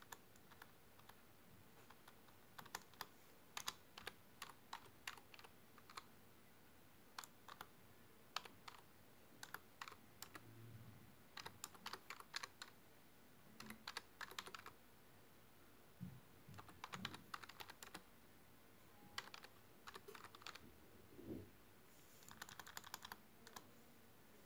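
Computer keyboard being typed on, quiet key clicks coming in short quick runs with pauses between them.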